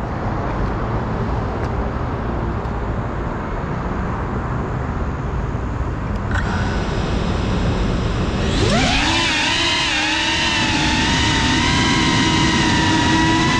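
Brushless motors of a GEPRC CineLog 35 FPV cinewhoop drone, heard through its onboard camera's microphone. After a steady rush of noise and a click a little past halfway, the motors spin up with a sharply rising whine and settle into a steady multi-tone whine as the drone lifts off.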